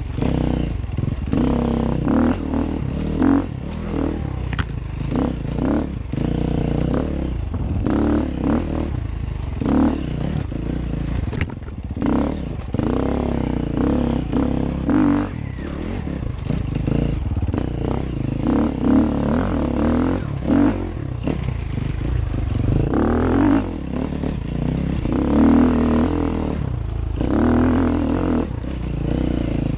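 KTM EXC-F 350 enduro bike's single-cylinder four-stroke engine being ridden hard, revving up and falling back again and again with the throttle and gear changes, with the bike clattering over the rough trail.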